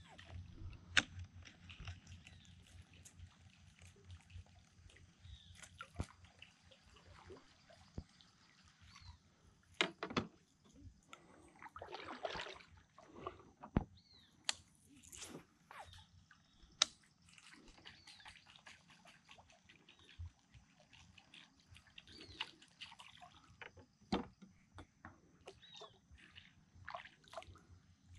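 Kayak paddle strokes in calm water: irregular splashes and drips as the blades dip and lift, with scattered sharp knocks.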